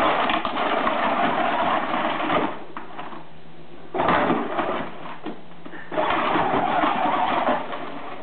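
Electric drive motors and gearboxes of a battery-powered John Deere Gator ride-on toy whining as it drives, in three runs of a second or two each with short pauses between, as the pedal is pressed and let go.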